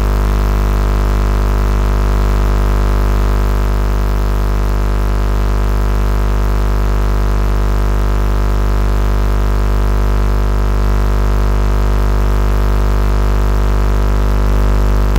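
A motor vehicle engine idling steadily, a constant low hum whose speed does not change.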